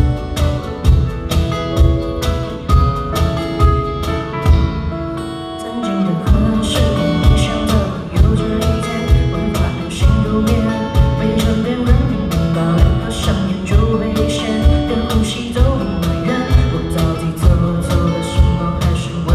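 Live band playing a song: a drum kit keeps a steady beat under guitar and singing. About five seconds in the drums and low end drop out briefly, and a rising slide leads the full band back in.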